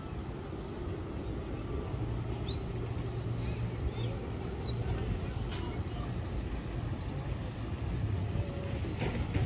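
Street ambience dominated by a steady low rumble of vehicle engines, with a few short high chirps about three to four seconds in and a sharp click near the end.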